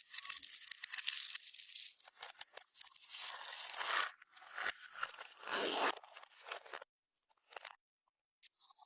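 Clear slime worked by hand, giving sticky crackling and popping noises in three bursts. In the last few seconds it thins out to a few faint clicks.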